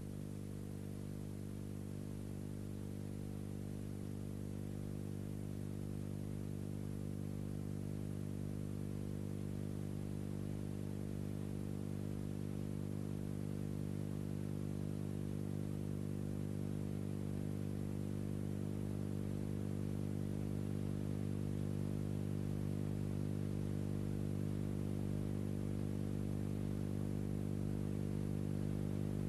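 Steady low electrical hum, a stack of low tones with faint hiss above, growing slowly a little louder. No crash or rumble from the collapsing wall is heard.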